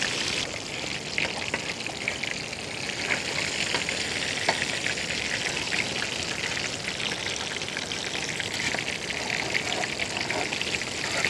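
Whole pearl spot fish (karimeen) deep-frying in coconut oil: a steady sizzle with scattered crackles and pops.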